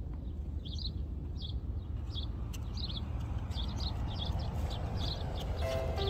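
A small bird chirping over and over, a short high chirp about every two-thirds of a second, over a steady low outdoor rumble.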